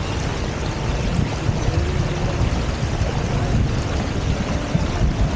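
Steady wind buffeting the microphone, with water rushing along the hulls of a Hobie Tiger F18 catamaran under sail.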